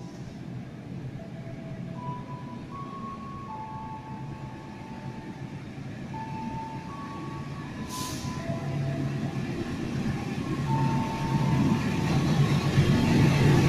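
Approaching CC 206 diesel-electric locomotive, its rumble growing steadily louder as the express train nears. A slow tune of single clear tones plays faintly over it.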